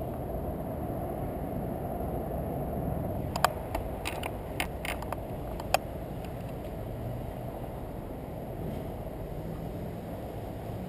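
Muffled handling noise on a helmet-mounted GoPro in its sealed case: a steady low rumble, with a quick run of sharp clicks and knocks from about three and a half to six seconds in.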